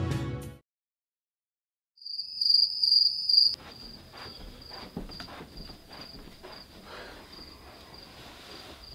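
Music ends just after the start. After a moment of silence, a cricket starts chirping about two seconds in: a steady, pulsing high trill, loud at first, then fainter from about three and a half seconds in. Under the fainter part are soft footsteps and rustling.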